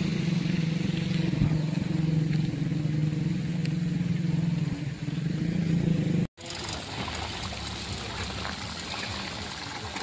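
An engine runs steadily with a low drone, then cuts off abruptly about six seconds in. After that comes a quieter, even outdoor noise.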